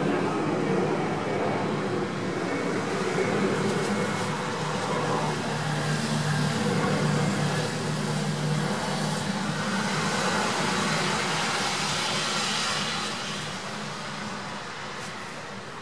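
Road traffic going by: a steady haze of vehicle noise with a low engine drone, dying away over the last few seconds.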